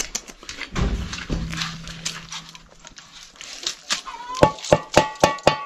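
Farmyard chickens calling as they are gathered for feed: a low held call about a second in, then a quick run of short clucks near the end.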